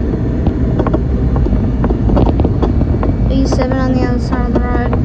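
Inside a city bus on the move: steady low engine and road rumble with frequent small rattles and clicks from the cabin fittings. A voice is heard briefly between about three and five seconds in.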